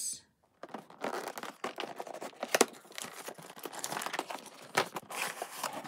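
Cardboard toy box being opened by hand: rustling and scraping of the cardboard as the inner tray slides out, with a few sharp knocks.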